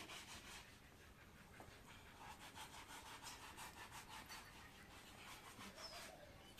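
Near silence, with a faint, rapid, even rubbing or brushing.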